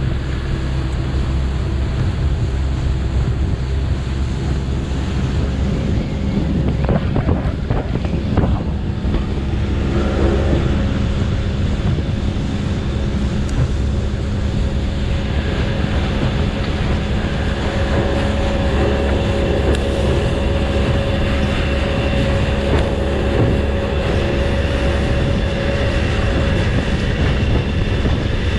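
Small motorboat's engine running steadily at speed, with water rushing past the hull and wind buffeting the microphone. A few thumps come about seven to nine seconds in.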